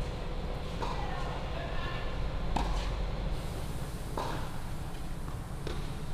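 Tennis ball struck back and forth in a rally: four sharp pocks of racquet hitting ball, or ball bouncing on the hard court, about one every second and a half, over a steady low rumble.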